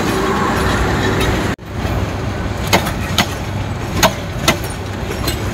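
Bangladesh Railway intercity passenger coaches rolling past on the track: a steady rumble, with the wheels clacking over rail joints in pairs about half a second apart. The sound cuts out briefly about a second and a half in.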